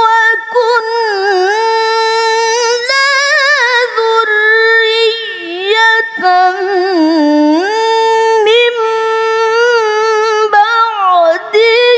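A woman's voice in melodic Quran recitation (tilawah), drawing out long high notes with rapid wavering ornaments and slides in several long phrases separated by brief breaths. The line dips lower in the middle and climbs back to its high pitch.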